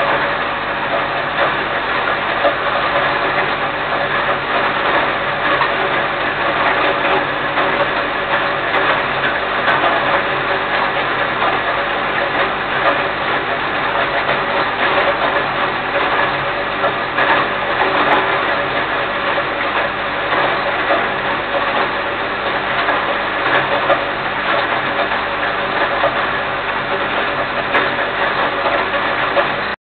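Small electric grain mill running steadily and loudly, grinding grain for quail feed, with a dense rattle of kernels inside the grinding chamber.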